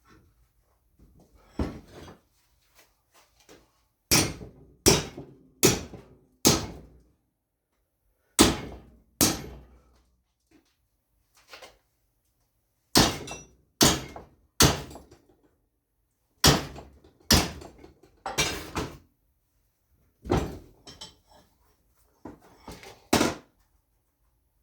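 Heavy hammer blows on steel stock being bent to shape, coming in bursts of two to four strikes with short pauses between, each knock ringing briefly.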